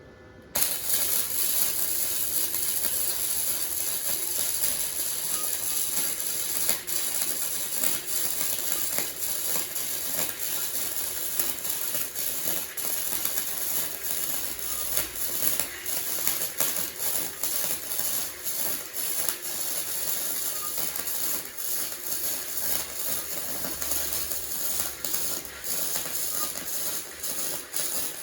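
Flux-core MIG welding arc from a Titanium Easy-Flux 125 welder on 16-gauge mild steel. It strikes about half a second in and then crackles steadily and irregularly.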